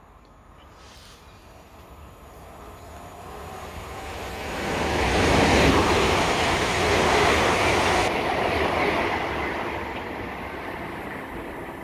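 Electric multiple-unit passenger train running past on the adjacent line. Its rumble and rail noise swell over about five seconds, stay loudest for a few seconds, then fade as it moves away.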